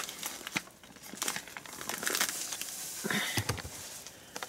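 Plastic wrapping on a half ham crinkling and rustling as it is handled, with a dull bump a little after three seconds in.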